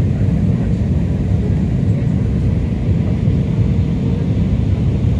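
Steady low rumble of engine and airflow noise inside the passenger cabin of an Airbus A320 on its landing approach, with a faint steady hum running through it.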